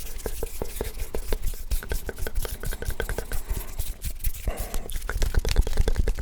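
ASMR hand sounds close to the microphone: many rapid, irregular clicks and rubbing noises from hands and fingers.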